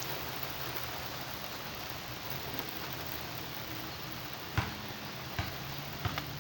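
Steady rain falling, an even hiss, with a few short sharp taps in the second half.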